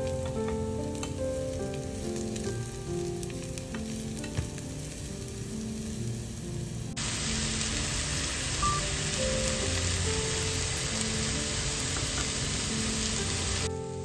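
Sliced mushrooms and onion sizzling in a frying pan over soft background music with sustained notes. About halfway through the sizzling jumps up loud and stays steady, then cuts off abruptly just before the end, leaving the music.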